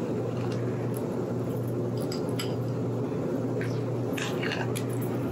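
A metal serving spoon scooping soft whipped-cream trifle out of a glass bowl: soft squishes with a few light clicks of spoon against glass, over a steady low hum.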